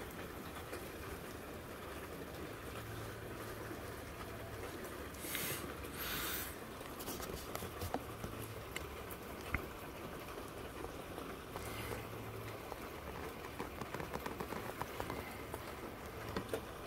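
Steady rain falling, heard from indoors through a window, an even hiss with scattered small drop ticks. Two brief louder hissing swells come about five and six seconds in.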